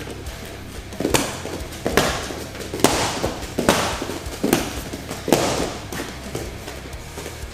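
Punches and kicks landing on hand-held striking pads in a quick reaction drill: about seven sharp smacks, roughly one a second.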